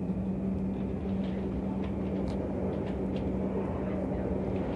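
Electric passenger train running, a steady low rumble with a constant hum and a few faint ticks.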